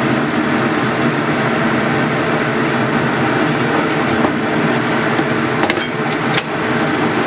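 Steady rushing hum from a gas stove as a large stainless stockpot of liquid heats on the burner, with a few light clicks in the second half.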